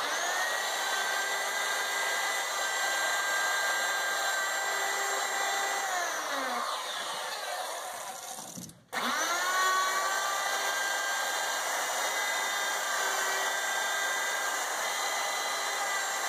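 Handheld electric plunge router spinning up to a steady high whine as it cuts through plywood to free boat-kit parts from the sheet. About six seconds in, the pitch slides down as the motor winds down. It cuts off abruptly, then spins up again and runs steady.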